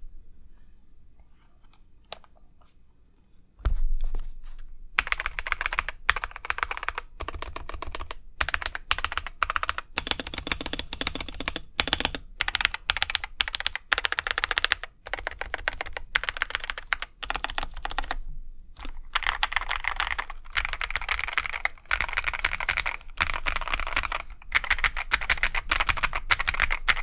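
Typing on a Feker IK75 mechanical keyboard with Akko CS Jelly Pink linear switches. A few faint clicks come first, then rapid, continuous typing starts about four seconds in and runs on with only brief pauses.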